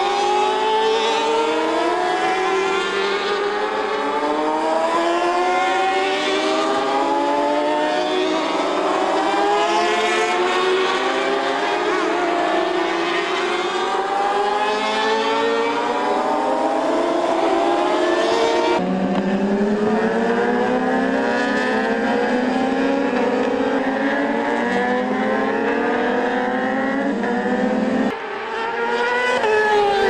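A pack of racing motorcycles at high revs, many engine notes overlapping, each rising again and again as the riders accelerate and shift up. The sound changes abruptly about two-thirds of the way in and again near the end.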